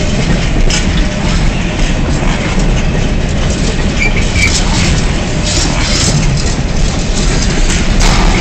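Container wagons of a freight train rolling past at speed: a steady rumble of steel wheels on rail with irregular clicks as wheelsets cross rail joints. A brief high squeak sounds twice about four seconds in.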